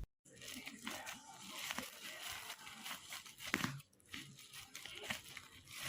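Irregular crinkling and rustling with scattered light clicks, as of something being handled; no motor running.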